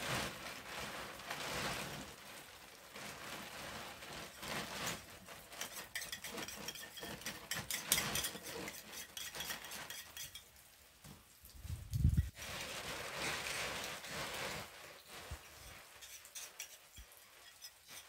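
Clear plastic sheeting rustling and crinkling in irregular bursts as it is pulled over and tucked around a pile of firewood. A dull low thump comes about twelve seconds in.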